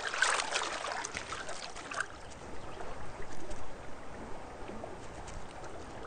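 Water splashing as a small animal dives into an open pool among ice. Lapping and a few small splashes follow over the steady trickle of running water.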